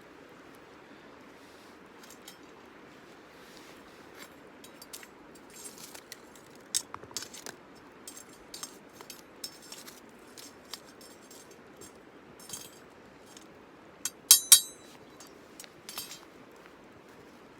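Metal cookware and utensils clinking and tapping in irregular light strokes, with two sharp, loud clinks close together late on.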